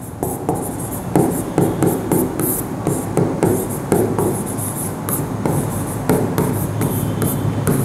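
Handwriting: irregular short scratching strokes and taps of a writing tool on a surface, as a point is written down.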